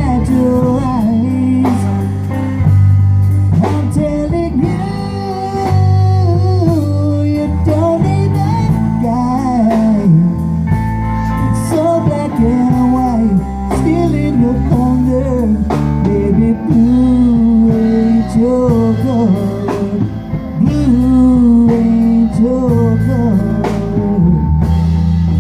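Band playing a slow country-blues ballad: a lead guitar line with notes that bend up and down over a steady bass and drums.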